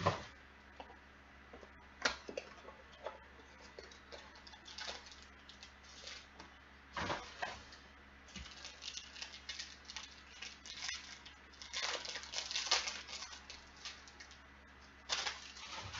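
Foil trading-card pack wrappers crinkling and rustling as they are handled and torn open, in irregular crackling bursts that are densest about three-quarters of the way in.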